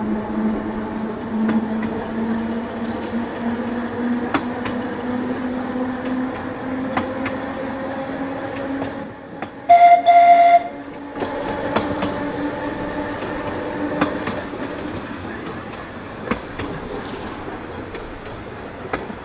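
Seaton Tramway electric tram running along the track, its motor whine slowly rising in pitch, with wheels clicking over the rail joints. About halfway through, a horn sounds twice briefly, the loudest sound.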